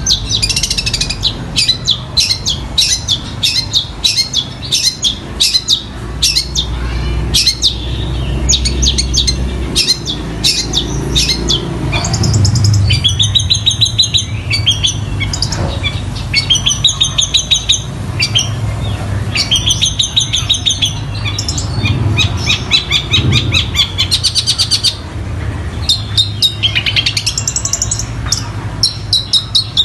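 Long-tailed shrike (cendet) singing loudly: a fast run of sharp chirps, then repeated quick trilled phrases, with a rising sweeping call near the end. The song is a mimicking one that takes in fighting-sparrow chatter and collared kingfisher calls. A steady low hum runs beneath it.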